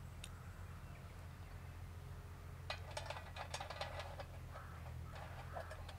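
Irregular crackling and clicks begin about three seconds in as tinder and small sticks are lit in a small folding steel stick stove. The crackling is densest for a second or so and comes again near the end.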